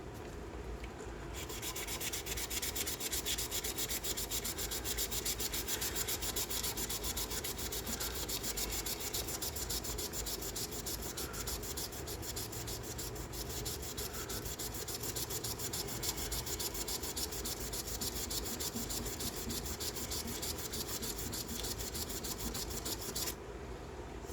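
Sandpaper rubbing on a wooden pen blank as it spins on a lathe, a fast, even scratching over the lathe motor's steady hum. The sanding starts about a second in and stops about a second before the end.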